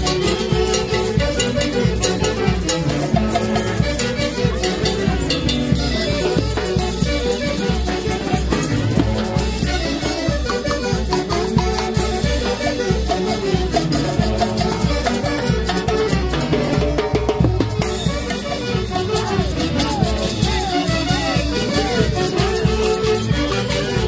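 Live huaylash played by a Mantaro Valley orquesta típica, with saxophones and clarinets carrying the melody over a fast, even beat; the music plays loud and without a break.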